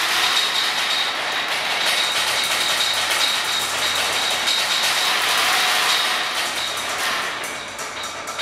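Experimental percussion on sound sculptures: a dense, rushing, rattling noise with a steady high tone running through it, easing off a little near the end.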